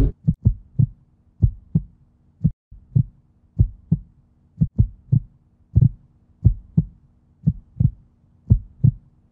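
Heartbeat sound effect: low thumps, mostly in pairs, about once a second, over a faint steady hum.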